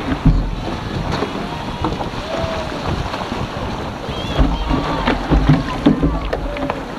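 Wind buffeting the microphone of a camera mounted on a surfski's deck, in rumbling gusts near the start and again after about four seconds, over water splashing and lapping against the hull as it is launched into the shallows, with a few short knocks and splashes.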